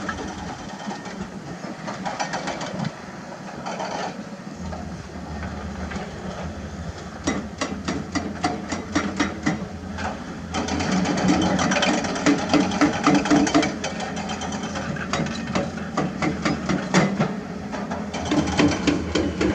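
A hydraulic excavator's diesel engine working under load, louder from about ten seconds in, with quick clattering knocks of rock against steel as limestone is dug and moved.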